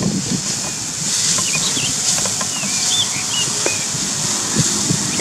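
Metal slotted spatula scraping and knocking in a steel kadhai as bamboo shoots are stirred and fried, over a steady high hiss, with small birds chirping several times.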